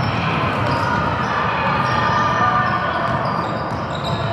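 A basketball bouncing on a gym floor, over a steady din of spectators' voices.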